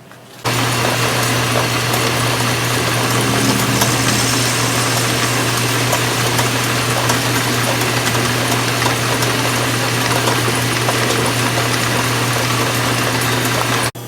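An electric shop machine running steadily and loudly: a constant motor hum under a broad hiss, cutting in abruptly about half a second in and stopping abruptly near the end.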